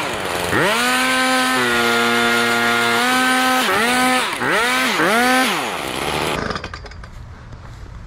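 Handheld gas leaf blower's two-stroke engine revved up to full throttle and held steady, then blipped up and down several times before it winds down near the end.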